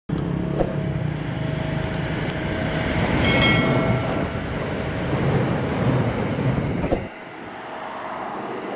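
SRT Red Line electric commuter train running past on the rails, a steady rumble with a few sharp clicks and a brief high-pitched squeal about three seconds in. The rumble drops away suddenly about seven seconds in.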